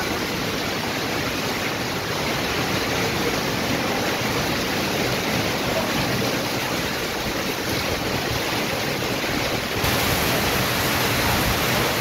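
Heavy rain pouring down steadily onto a corrugated metal roof and surrounding trees, a dense even rush. About ten seconds in it grows slightly louder and brighter.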